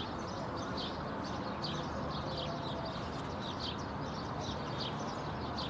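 Small bird chirping over and over, about two short high chirps a second, over a steady low background hum.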